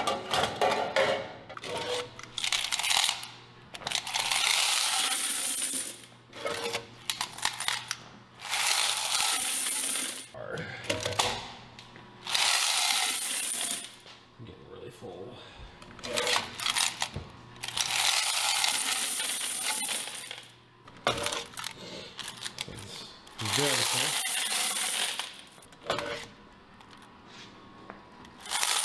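Quarters poured out of commercial washer coin boxes into a plastic bucket: a jingling rush of coins, each pour lasting a second or two, repeated several times with short metallic clatters from handling the boxes in between.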